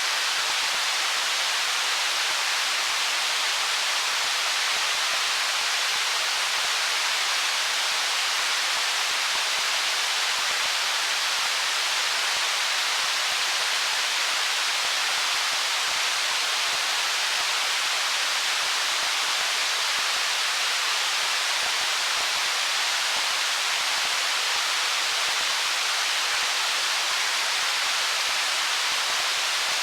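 Stream water rushing over stones in a steady, even hiss-like wash, with almost no low rumble and no separate splashes or gurgles.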